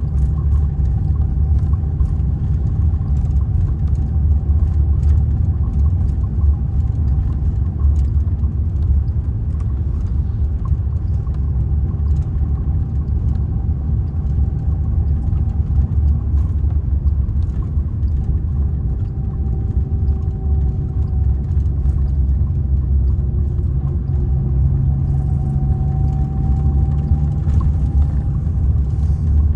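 Mercedes-Benz O-500R bus's diesel engine running steadily, a deep low drone with a faint whine that drifts slightly in pitch now and then.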